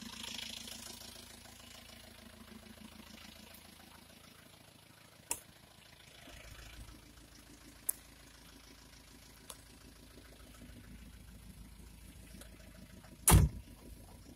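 Chevrolet LUV 4x4 pickup's engine running at low speed on a rough dirt track, heard from inside the cab. There are a few faint clicks, and one loud sharp knock near the end.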